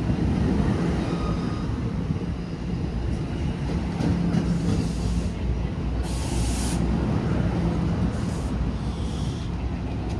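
New Jersey Transit electric commuter train running through the station with a steady low rumble and a faint steady hum, and a short hiss of air about six seconds in.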